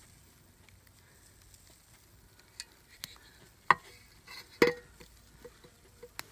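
Small kindling fire in a salvaged outdoor stove crackling with scattered pops as it struggles to catch, with two louder sharp cracks about a second apart midway through.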